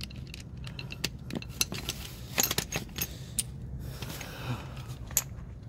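Metal hand tools and sockets clinking and clattering as they are picked up and handled, a series of scattered short metallic clinks.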